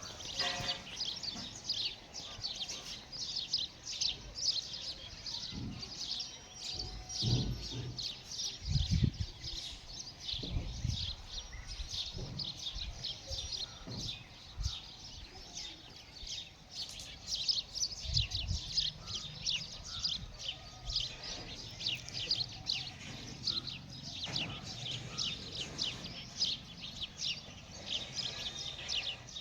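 Many small birds chirping at once, a dense, continuous chatter of quick high calls. A few low thumps come through about seven to eleven seconds in and again around eighteen seconds.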